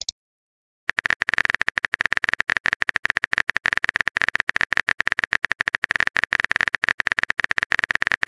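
Phone keyboard typing sound effect: a rapid, even run of key taps starting about a second in, as a text message is typed out.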